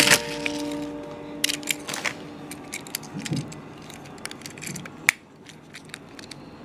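Plastic crinkling and small clicks as a die-cast toy truck is pulled from its clear plastic bag and handled, with a sharp click about five seconds in. The last notes of background music ring out at the start.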